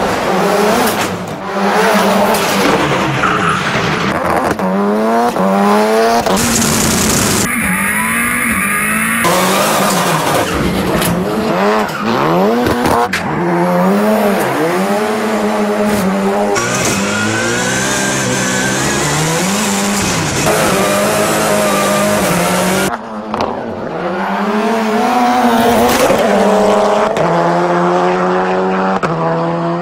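Highly modified 650 bhp four-wheel-drive Ford Fiesta rally car's turbocharged engine revving hard, its pitch rising and falling over and over, with tyres squealing through drifts. The sound changes abruptly several times as shots cut.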